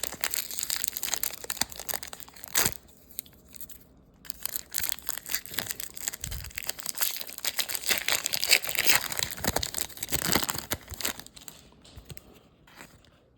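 Foil trading-card pack wrapper crinkling and tearing in irregular bursts as it is handled and opened, with a sharp click about two and a half seconds in.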